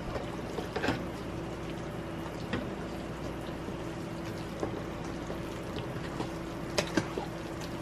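A spoon stirring wet, thick dukunu batter of grated green banana, sweet potato and coconut milk in a bowl, a soft wet churning with a few light spoon taps against the bowl. A steady low hum runs underneath.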